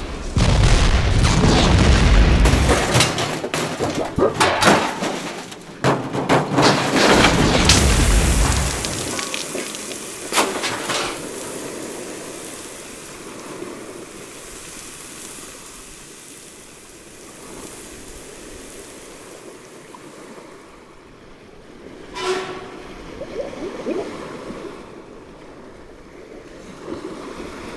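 Explosion sound effects: a run of booms and crashes over a deep rumble for about the first nine seconds. Then comes a quieter steady hiss, with a single sharp crack late on.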